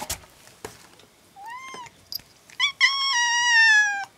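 Young ginger-and-white cat meowing after an egg has been taken from it: one short meow that rises and falls, then a couple of quick chirps and a long, loud, drawn-out meow that slowly sinks in pitch. A few light knocks sound near the start.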